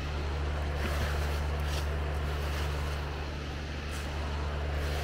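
Steady low machine hum from a running motor, with a few light clicks and knocks about one, two and four seconds in.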